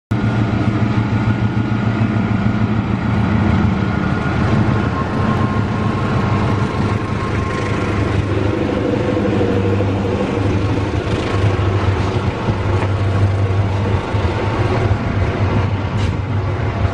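Long passenger train passing: a diesel locomotive goes by first, then a steady run of stainless-steel coaches rolling over the rails, with a continuous low hum.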